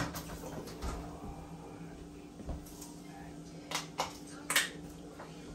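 Kitchen clatter: a handful of short knocks and clicks from dishes and cupboards, the loudest about four and a half seconds in, over a steady low hum.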